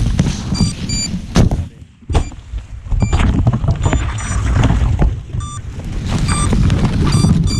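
Loud rumbling handling noise and knocks on a crashed FPV drone's onboard camera microphone as the camera is jostled in the brush, with short high beeps several times.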